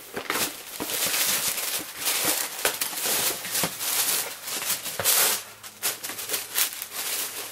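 Tissue paper rustling and crinkling as a trainer is pulled out of its cardboard shoebox, with small knocks from handling the box and shoe.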